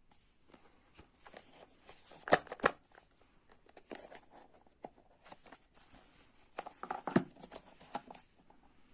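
Packaging being handled during an unboxing: short rustles and scattered clicks and knocks, with two louder clusters of knocks about two and a half seconds in and about seven seconds in.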